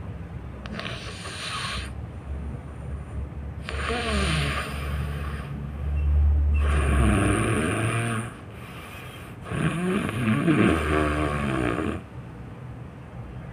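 A person snoring loudly: about four long snores a few seconds apart, each lasting a second or two with a wavering, rattling pitch.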